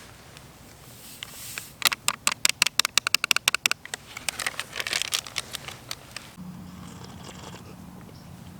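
A quick run of light, sharp clicks and rattles, about eight to ten a second for two seconds, then a few more scrapes and clicks.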